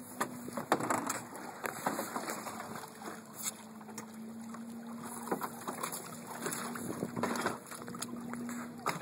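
Choppy lake water sloshing against a boat hull and a canoe alongside, with scattered knocks and bumps and a faint steady hum underneath.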